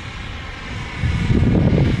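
JetCat P20SX miniature kerosene turbine on a foam MB-339 RC jet in flight: a steady high turbine whine over a low rumble that gets louder about a second in as the jet comes nearer.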